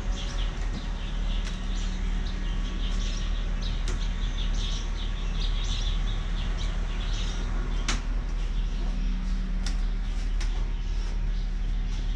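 Birds chirping over a steady low rumble of outdoor background noise, with a sharp click about eight seconds in.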